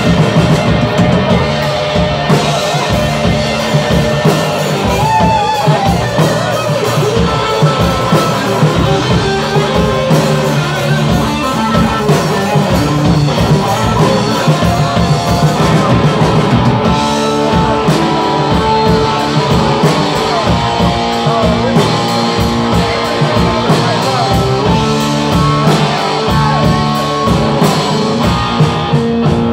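A rock band playing live and loud: electric guitars over a drum kit keeping a steady beat.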